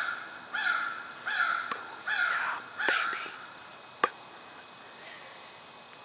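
A crow cawing, a run of harsh caws about one every 0.7 seconds that stops about three seconds in. A single sharp click follows about a second later.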